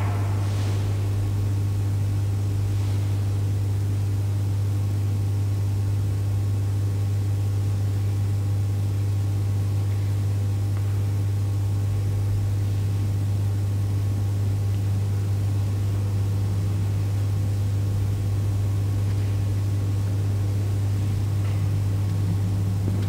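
Steady low electrical hum with faint hiss, unchanging throughout.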